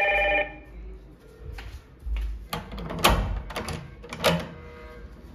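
A video door phone's ring chime, a steady multi-note tone, cuts off about half a second in as the call is answered. After a moment a series of sharp clicks and clunks follows as the flat's front door handle and latch are worked and the door is opened.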